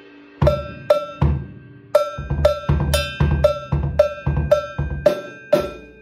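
Yamaha birch drum kit played by hand with sticks: two or three separate strikes, then a steady groove of tom, snare and bass drum hits about four a second that stops shortly before the end, each drum ringing briefly after the stroke.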